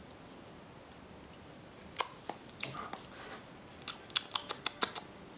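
A person tasting an energy gel in the mouth: a sharp smack about two seconds in, a few soft wet mouth sounds, then a quick run of about eight lip smacks and tongue clicks near the end.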